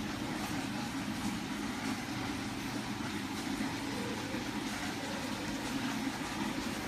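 Steady low mechanical hum with a faint hiss over it, unchanging throughout.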